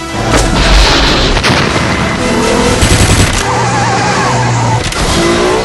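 Loud, dense action-film car-chase sound effects: car engines running hard and tyres screeching, with bursts of gunfire and a few sharp cracks.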